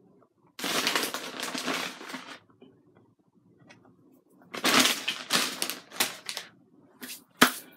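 Crinkling and rustling of food packaging being handled, in three bursts, with a sharp click near the end.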